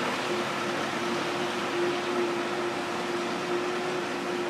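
Street-washing truck running as it moves slowly away on a wet road: a steady hum over an even hiss of water and tyres.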